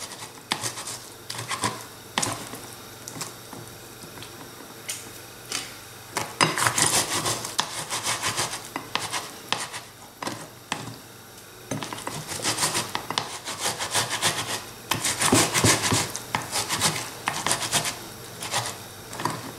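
Halved tomato being grated on a flat stainless-steel grater over a plate: scattered light scrapes at first, then quick runs of rasping back-and-forth strokes from about six seconds in, with short pauses between runs.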